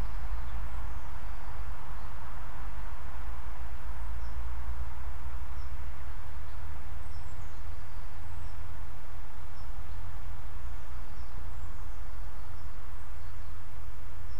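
Woodland ambience: a steady low rumble with faint, scattered high bird chirps.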